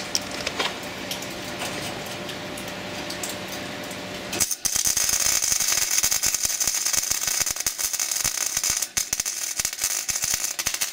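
Flux-core wire-feed welder striking an arc about four and a half seconds in and then crackling and hissing steadily, with a short break a little before the end, as it welds a thin-walled steel tube frame; the welder thinks the weld has burned through the tube.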